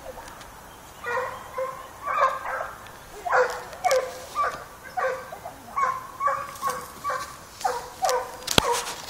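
Hunting dog barking over and over while running hares, about two barks a second after a quiet first second. There is a sharp click near the end.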